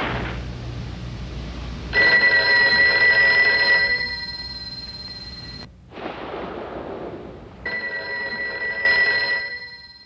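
A telephone bell ringing twice, each ring about two seconds long with a pause of a few seconds between them, over a background hiss. The second ring fades away.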